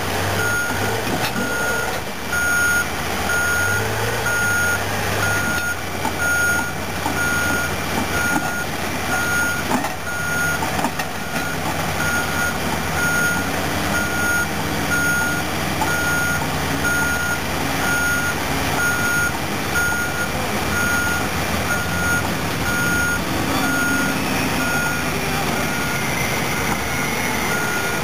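Caterpillar D10T bulldozer maneuvering, its backup alarm beeping steadily at an even pace over the heavy diesel engine, whose pitch rises and falls as the machine works.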